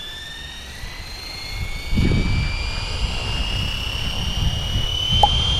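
Flywing FW450 V3 electric RC helicopter's motor and rotor whine, rising steadily in pitch as it spools up. From about two seconds in, wind buffets the microphone with a low rumble.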